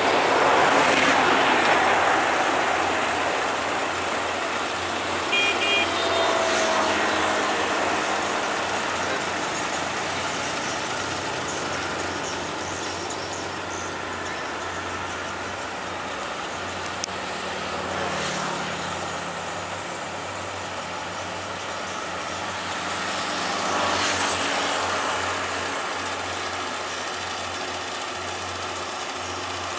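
Kubota rice combine harvester running steadily as it harvests standing rice, a continuous machine din that swells about a second in and again near 24 seconds.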